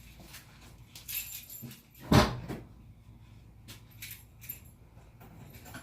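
Small clicks and jingling of keys, with one heavy thump about two seconds in.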